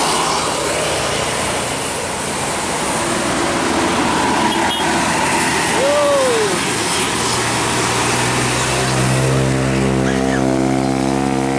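Traffic on a rain-wet road: a constant hiss of tyres and rain, joined about seven seconds in by a steady deep drone with many overtones from a passing bus.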